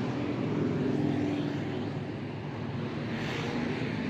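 Traffic on a busy city avenue: cars and motorcycles driving past in a steady engine drone.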